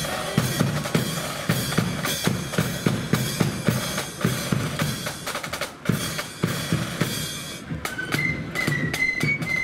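Marching flute band's side drums and bass drum beating a march rhythm; near the end the flutes come in with a tune.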